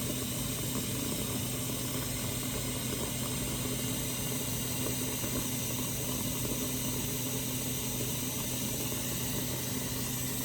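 Kitchen tap running steadily into a sink filled with soapy water, with a steady low hum underneath.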